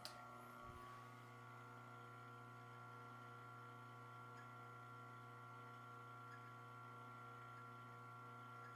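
Eureka Atom 75 espresso grinder's motor running empty with no beans: a quiet, steady hum of several even pitches.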